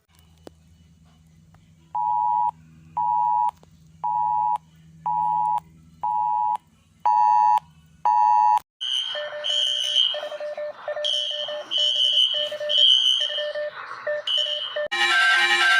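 Electronic emergency-alert attention tones: seven short, even beeps about one a second over a faint low hum, then a harsher pulsing alert tone with a high and a low pitch. Near the end a bright, chiming tone pattern starts.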